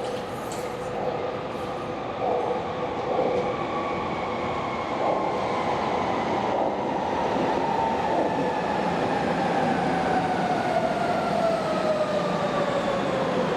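Berlin U-Bahn train running on the elevated line, its motor whine falling steadily in pitch over several seconds as it slows, over the rumble of wheels on rail.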